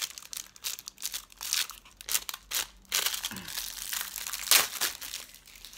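Clear plastic packaging bag crinkling and rustling in irregular crackles as a silicone mould is pulled out of it and the wrapping is handled.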